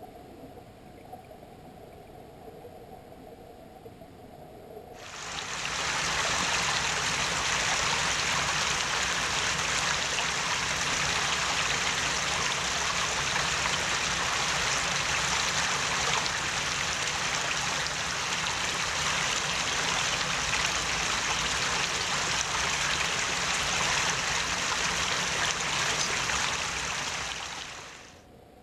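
Shallow freshwater stream running over stones, a steady rush of water that comes up a few seconds in after a quiet start and drops away just before the end.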